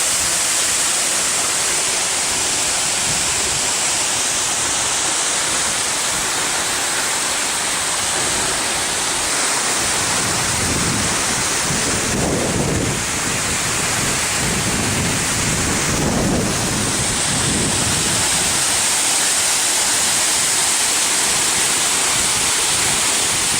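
Waterfall close up: a loud, steady rush of falling water, with a deeper rumble swelling up about halfway through.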